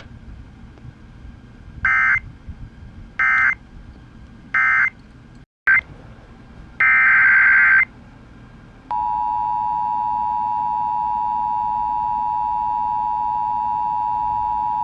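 Emergency Alert System digital data bursts: three short, buzzy end-of-message bursts about a second and a half apart, then a longer data burst. About nine seconds in, a steady, high EAS attention tone starts.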